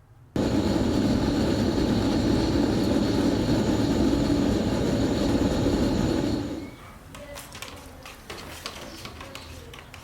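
A power tool running steadily at full speed for about six seconds, then stopping, followed by light clicks and knocks of handling.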